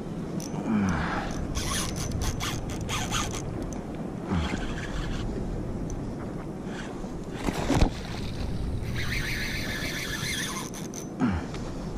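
Fishing reel at work while a hooked bonito is fought from a kayak: bursts of rapid clicking early on and a zipping run of about two seconds near the end, with a few dull knocks, over steady wind and water noise.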